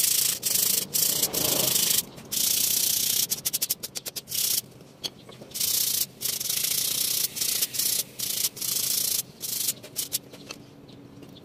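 Brake pad being sanded by hand across its friction face: repeated rough scraping strokes, roughly one a second, with a quick run of short strokes about a third of the way in, dying down near the end.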